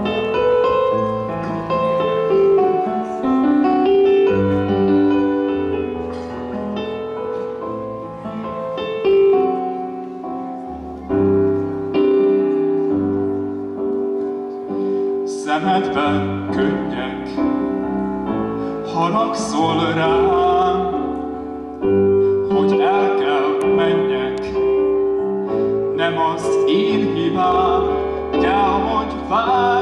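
Electric keyboard with a piano sound playing slow sustained chords, joined about halfway through by a male voice singing with vibrato over it.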